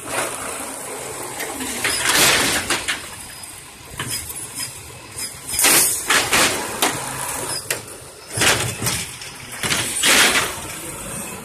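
Automated side-loading garbage truck emptying a wheeled trash cart with its hydraulic grabber arm: the engine and hydraulics run steadily under several loud bursts of noise as the cart is lifted, dumped into the hopper and set back down.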